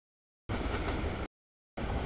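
Two short fragments of steady outdoor rumble and hiss, each cutting in and out abruptly with dead silence between them.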